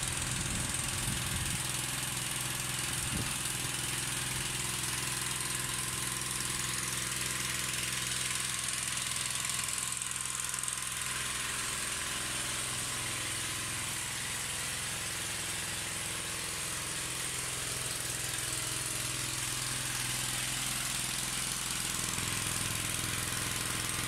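Milking machine's belt-driven vacuum pump unit running steadily, a constant hiss over a low hum.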